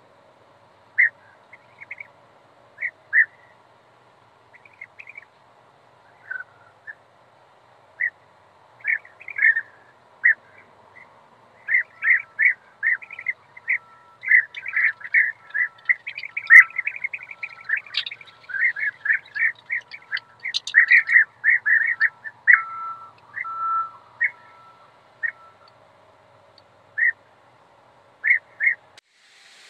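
European bee-eaters calling: many short, repeated calls, only a few at first, then coming thick and fast through the middle stretch, and thinning out again near the end.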